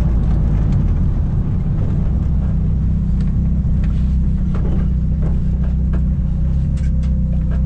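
Nissan Silvia S13's four-cylinder engine running steadily at low revs, heard from inside the cabin as the car rolls slowly, with a few faint clicks over the drone.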